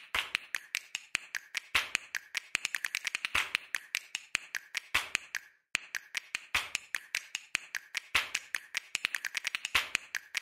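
A rapid, uneven run of sharp clicks or taps, several a second, with a brief pause about five seconds in.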